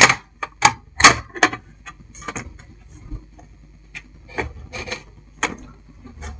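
A satellite receiver's top cover being slid onto its chassis and pressed into place by hand: irregular clicks, knocks and scraping. The loudest knocks come at the start and about a second in, with a smaller cluster around four to five and a half seconds in.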